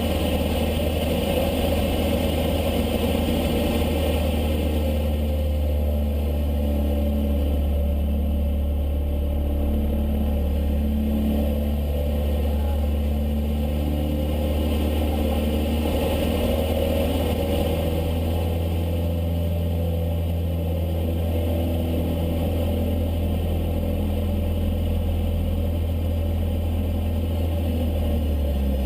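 Cessna 152's Lycoming four-cylinder engine and propeller running in flight: a steady, constant drone with small shifts in pitch.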